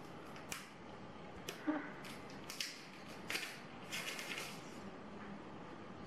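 Thin plastic backlight sheets from an iPhone 6 LCD crinkling and rustling as gloved hands peel and fan them apart, in a string of short, irregular crackles.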